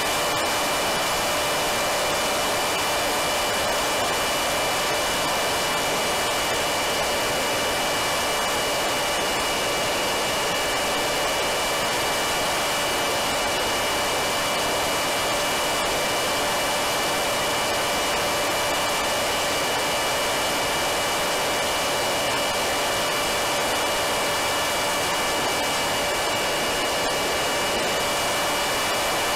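Electric motor of a Wing Wing Z-84 flying wing running at steady throttle, a steady high whine over rushing wind, recorded by the camera on board the plane.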